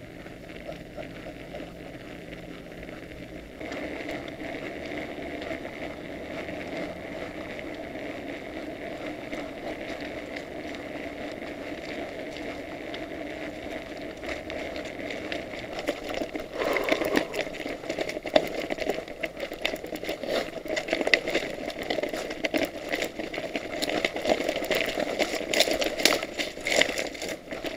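A mountain bike rolling at speed: a steady rumble of tyres and air. Past the halfway mark it turns into rapid, irregular rattling and knocking as the bike runs over a rougher surface.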